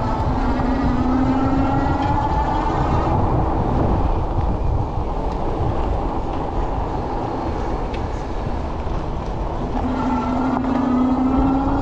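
An electric motor's whine, climbing slowly in pitch over the first few seconds, fading, then climbing again near the end, over a steady low rumble of wind and rolling noise.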